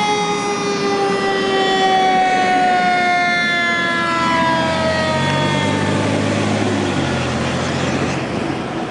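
Fire engine siren sounding one long wail whose pitch sinks slowly and steadily over about six seconds. About five seconds in, the truck's engine swells into a low rumble as it passes close, then eases off.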